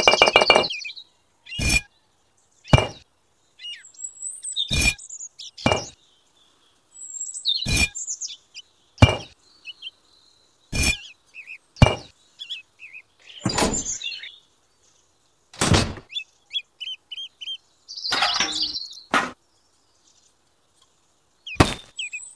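Miniature clay bricks set down by hand one at a time, clicking against each other: about a dozen sharp clicks a second or two apart. Birds chirp faintly between the clicks.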